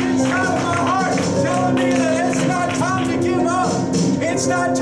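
Live church band playing an upbeat praise groove on drum kit and piano, with cymbal and drum strokes throughout and voices singing or calling out over it.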